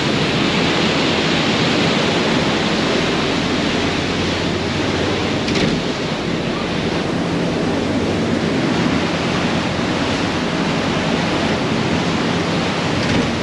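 Steady rush of wind and churning water on the open deck of a moving cruise boat, with wind buffeting the microphone.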